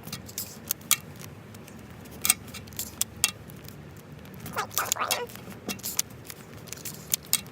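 Adhesive tape being handled and pressed around a foam squishy toy: irregular sharp crackles and clicks of tape pulling and sticking, with a brief fuller rustle about five seconds in.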